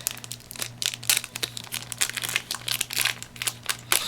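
Foil booster-pack wrapper crinkling and crackling in quick, irregular bursts as it is handled and opened by hand.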